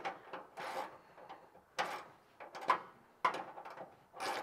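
A hand tool tightening the bolts of a 3 mm aluminium panel in a ute tub: faint, irregular clicks and scrapes of metal tool on bolt and panel.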